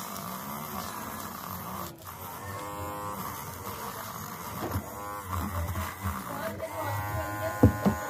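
Small cordless rotary tool with a wire brush bit running and scrubbing rust off a steel turnbuckle, with a sharp knock near the end.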